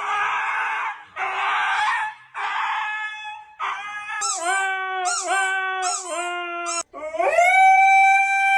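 A husky vocalising: three rough, harsh bursts, then a run of wavering, bending howls, and from about seven seconds in one long, steady held howl.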